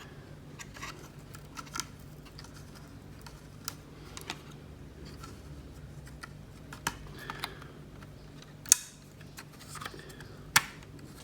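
Scattered light clicks and taps of hands working on a Mac Mini's hard drive, peeling off its adhesive temperature sensor and tape, with two sharper clicks in the second half. A faint steady low hum runs underneath.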